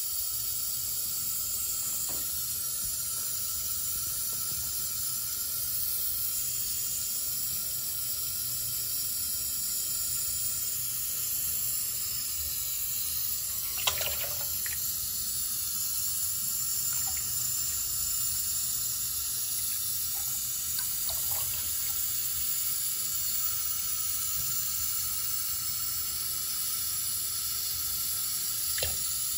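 Tap water running steadily into a sink basin, with a short louder splash about halfway through.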